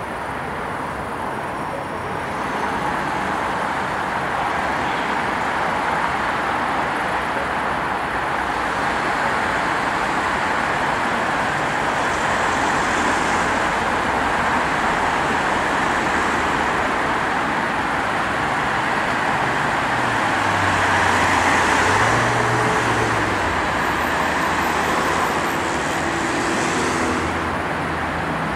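Steady city road traffic: cars passing on a multi-lane road, with tyre and engine noise. It swells about three-quarters of the way through as a vehicle with a low engine note passes closer.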